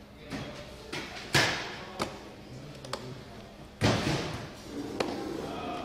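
A series of sharp knocks and clunks from hands working on a battery case mounted in a metal wheelchair frame, about seven in all, with two louder knocks about a second and a half in and near the middle.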